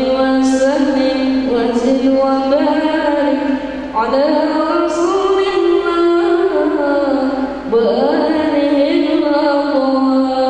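A boy singing solo into a handheld microphone over a PA system, in long held notes that slide between pitches. There are short breaths about four seconds and near eight seconds in.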